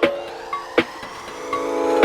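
Electronic background music: sustained synth chords with a few sharp percussive hits and a slowly rising sweep.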